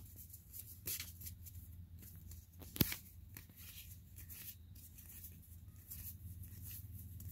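Pokémon trading cards being leafed through one by one in the hand: soft slides and flicks of card stock, with one sharp click nearly three seconds in, over a low steady hum.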